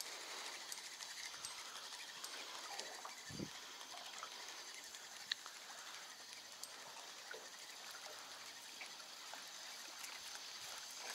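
Faint splashing and lapping of water as a hooked small bream is drawn across the surface toward the boat on a feeder line, with a single dull knock about three seconds in.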